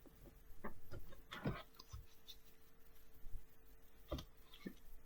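Faint, scattered taps and rustles of Pokémon trading cards being handled, a few separate clicks over a thin steady hum.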